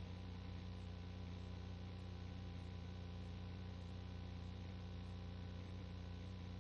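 Steady low electrical-sounding hum with an even hiss over it, unchanging throughout.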